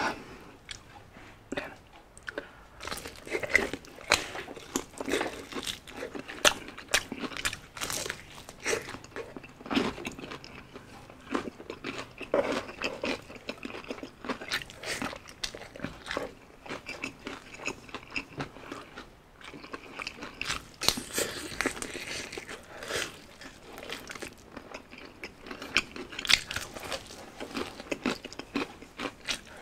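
A person biting into and chewing crispy spicy fried chicken, with irregular crunches of the breaded skin and chewing between bites.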